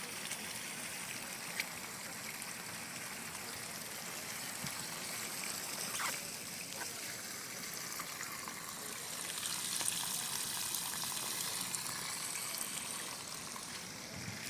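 Fast-flowing floodwater rushing and splashing steadily, swelling a little louder in the second half, with a couple of sharp ticks.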